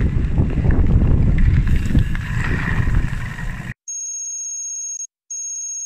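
Rumbling wind and gravel riding noise on a bike-mounted camera's microphone, cutting off abruptly. Then an electronic telephone-style ringing alert sounds in two bursts, a timer sound effect marking the climb time.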